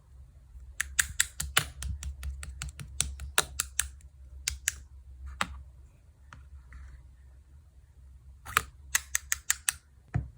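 Quick runs of sharp clicking taps, like typing on keys, in two spells with sparser clicks between, over a steady low hum.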